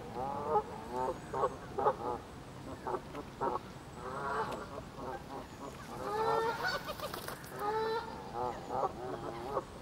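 Canada geese honking: a run of short honks in quick succession, then longer drawn-out calls, the loudest about six seconds in.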